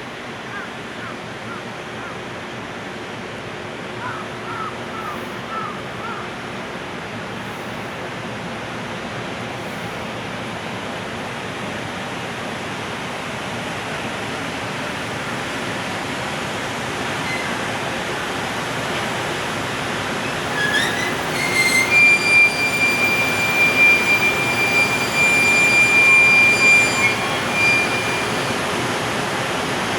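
Freight train pulled by an EF510 electric locomotive leaving the station: a steady running noise that builds slowly, then a loud, high-pitched, steady squeal lasting about seven seconds in the last third, typical of wheels squealing on a curve.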